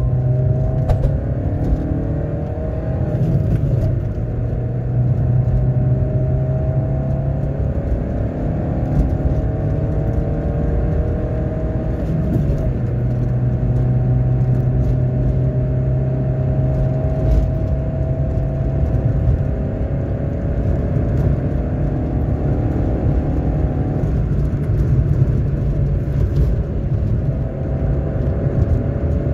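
Peugeot 206 engine running after its oil pump has been rebuilt, a steady hum whose pitch drifts slowly up and down as the engine speed changes.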